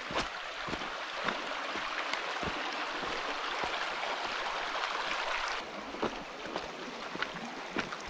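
A shallow stream babbling over stones, with scattered irregular knocks of footsteps on the rocky bed. The rush of water eases a little about two-thirds of the way through.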